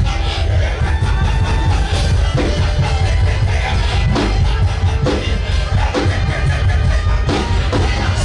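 Worship band music with a heavy, deep bass and drum hits.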